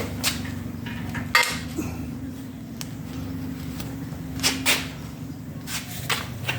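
A few sharp clicks and knocks of metal tools and parts being handled, the clearest about a second and a half in and a pair near the end, over a steady low hum.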